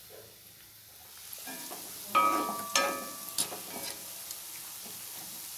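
Strips of kurkure batter deep-frying in hot oil in an iron kadai, a steady sizzle, with a spatula clinking and scraping against the pan several times around the middle.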